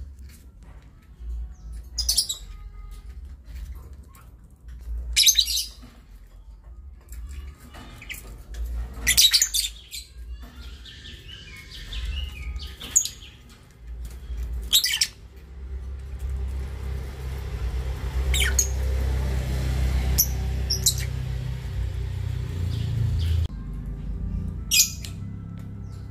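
Caged lovebirds giving short, high-pitched chirps, one every few seconds, about nine in all. A low steady background sound rises in the second half.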